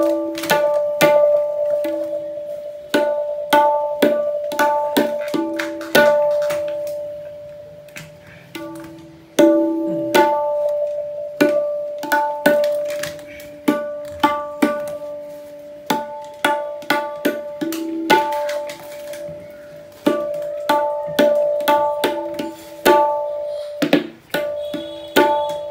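Dayan, the right-hand tabla drum with a sheesham-wood shell, struck with the fingers in short irregular runs of strokes. Each stroke leaves a clear ringing pitched tone that sustains and fades between runs, showing the drum's tuning.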